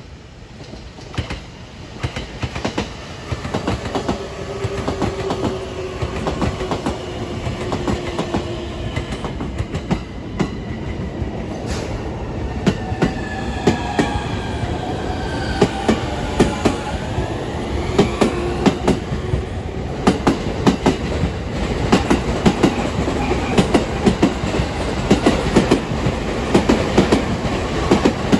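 Electric train wheels clattering over rail joints on a steel railway bridge. The clicks come closer together and louder through the second half. A few whining tones glide up and down in pitch midway.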